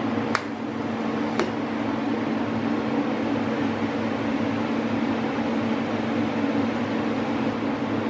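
TIG welder humming steadily while welding a stainless steel stud, with two sharp clicks about a second apart near the start.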